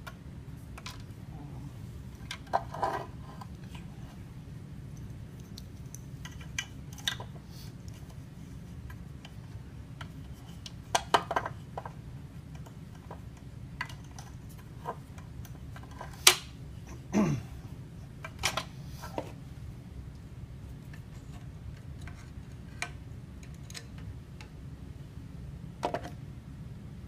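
Scattered clicks and clinks of small hard objects being handled, over a steady low hum, with one short falling tone about midway.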